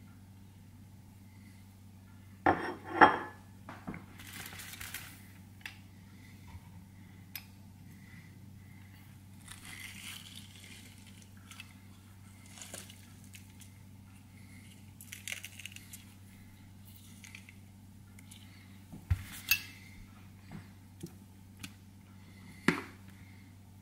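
Kitchen prep handling: dishes and utensils clinking and knocking on a countertop. Two sharp knocks come about two and a half seconds in, more clinks around nineteen seconds and one near the end, with soft rustling between, over a steady low hum.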